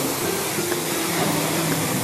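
High-pressure car-wash spray wand blasting water onto a foam-covered car, a steady hiss of spray hitting the bodywork.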